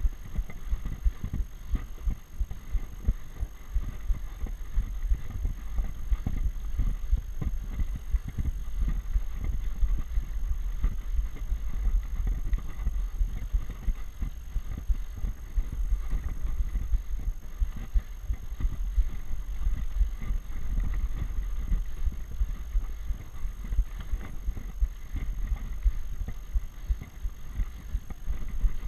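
Bicycle ridden up a road climb, heard from a GoPro on the bike: an uneven low rumble of wind buffeting and road vibration on the microphone, with frequent short jolts.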